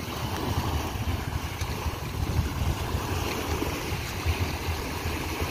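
Small waves breaking and washing up a sandy shore in foaming surf, a steady rushing wash, with a fluctuating low rumble of wind on the microphone.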